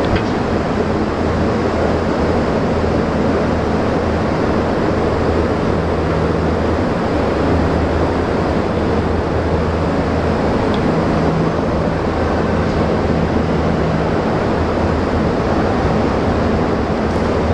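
Large turbo-diesel generator set running steadily: a loud, even machine noise with a low hum under it.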